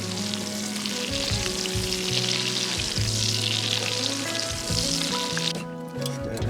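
Steak sizzling loudly as it fries, the hiss cutting off suddenly about five and a half seconds in.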